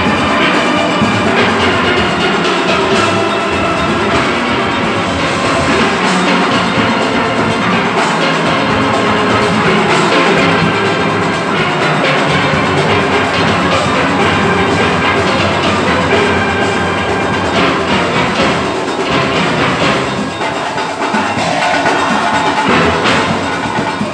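A full steel orchestra playing: many steelpans together over drums and percussion, loud and continuous.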